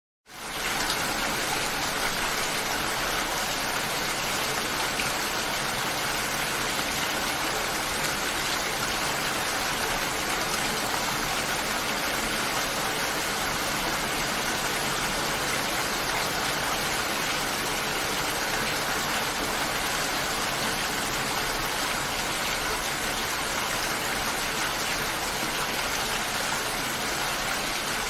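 Steady, heavy rainfall, an even dense hiss of rain falling without letting up, which fades in quickly at the start.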